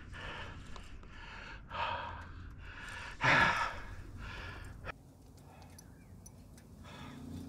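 A man breathing hard in a series of heavy breaths and sighs while fighting a hooked fish on rod and reel. The loudest breath comes about three seconds in, there is a sharp click near five seconds, and the breathing then quiets.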